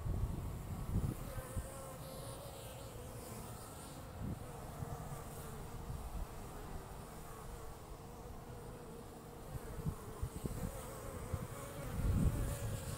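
Honeybees buzzing in flight around a hive entrance: a steady, wavering wingbeat hum. A few low rumbles come through, the loudest about twelve seconds in.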